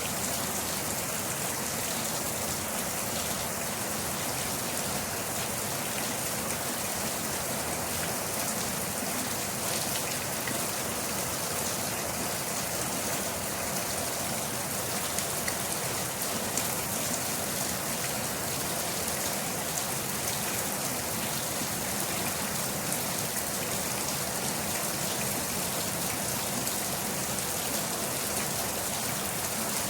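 Steady rain falling on a surface, an even hiss with many small scattered drop patters and no change in intensity.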